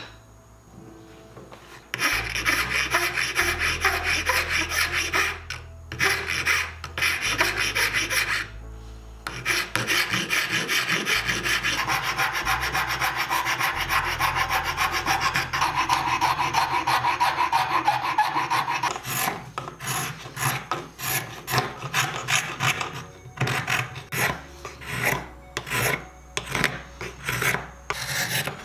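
A metal hand file rasping across a walnut spoon blank. Fast, continuous scraping strokes start about two seconds in, with a couple of brief pauses. In the last third they become separate push strokes, about one or two a second.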